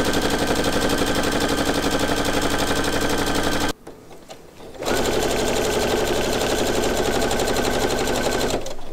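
Brother domestic sewing machine stitching at speed through leather about 1 mm thick, in two fast, even runs that each stop abruptly, with a pause of about a second between them.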